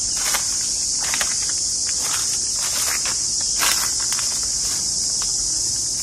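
Dense chorus of insects, a steady high-pitched shrill, with a few soft footsteps here and there.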